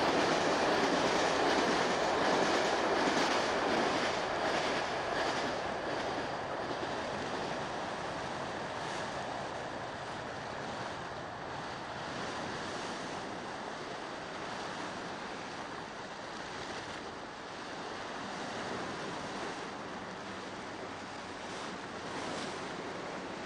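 A diesel-hauled passenger train runs along a sea wall and fades off over the first five or six seconds. Waves surge and break against the wall throughout, with wind on the microphone.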